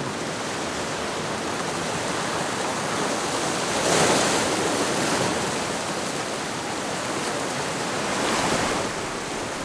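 Sea surf washing against the rocks in a steady rush. It swells louder about four seconds in and again near the end.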